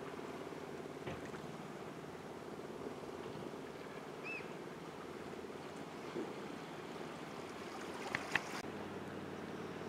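Calm sea water lapping gently against rocks and a stone harbour wall, a steady soft wash. A short high chirp about four seconds in, and two sharp clicks near the end.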